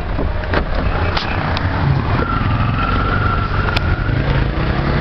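Motor vehicle running on a flooded street: a steady rumble, with a held whine for about two seconds in the middle.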